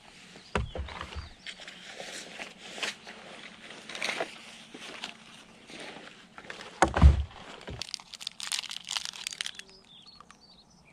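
Rustling, clicking and knocking of outdoor gear being handled, a small shoulder pouch opened and its contents taken out, with two heavy thumps, one about half a second in and a louder one about seven seconds in, then a quick run of crackling clicks near the end.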